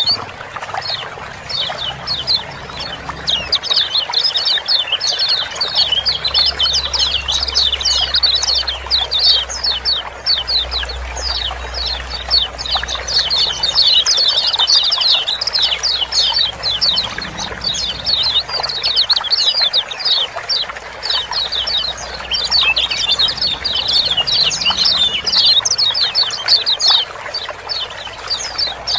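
A group of kecial kuning white-eyes chattering in a dense, continuous stream of rapid "ciak-ciak" chirps, with running water trickling underneath.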